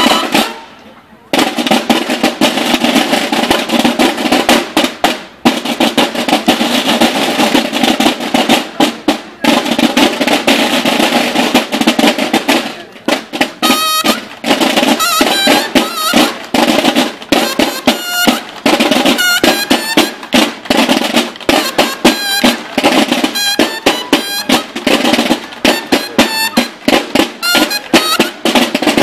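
Loud music driven by snare drum rolls and many sharp percussive hits, with pitched layers over them. It drops out briefly about a second in, then carries on with a few short breaks.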